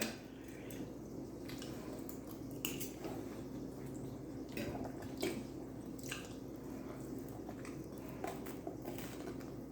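Close, wet chewing and squishing mouth sounds of someone eating soft pasta in sauce, with scattered small clicks, over a faint steady low hum.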